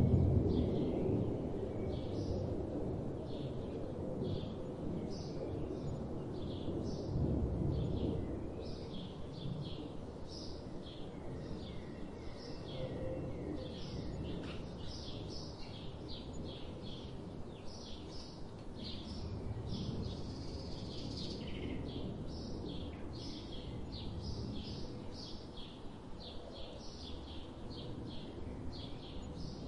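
Forest ambience of many small birds chirping and calling, short high notes following one another without a break. Underneath is a steady low rumbling noise that swells at the start and again about seven seconds in.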